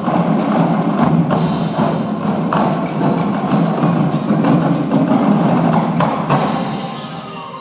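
Indoor drumline battery playing a loud, dense percussion passage with heavy bass-drum strokes; it dies down near the end.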